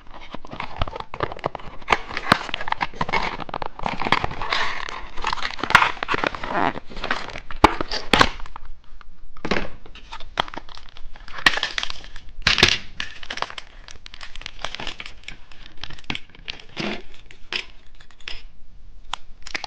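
Plastic candy packaging crinkling and rustling as it is handled and torn open, an irregular run of crackles with sharper clicks.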